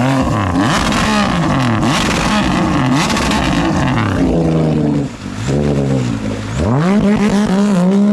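Stand-up jet ski engine revving up and down in repeated blips, then climbing steeply in pitch near the end as the ski accelerates away and settles into a high, steady run.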